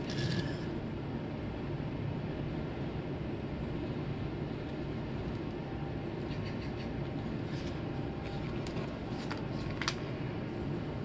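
Steady low background rumble, with a knock at the start and scattered light clicks and taps in the second half, the sharpest near the end, from a soldering iron and circuit board being handled on a work mat.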